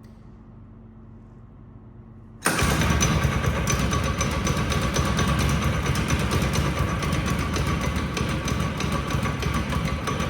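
A faint low hum for about two and a half seconds, then the 5-horsepower small engine of a homemade Snow Dog-style track sled cuts in abruptly and runs steadily.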